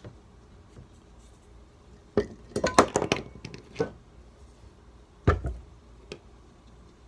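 Hard objects being handled and set down on a work surface during a shoe-glue repair. A quick run of knocks and clinks, then a single heavier thump a few seconds in and a light tap near the end.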